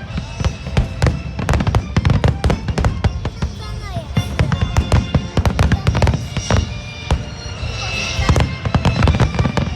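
Aerial fireworks display: a rapid barrage of sharp bangs and crackling bursts over a constant deep rumble of booming shells.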